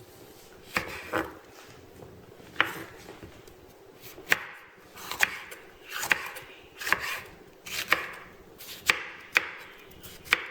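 A kitchen knife chopping vegetables on a cutting board: sharp knocks of the blade on the board about once a second, some with a short scrape.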